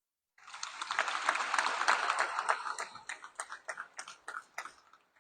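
Audience applauding: a dense round of clapping that starts about half a second in, then thins out to a few scattered claps and fades near the end.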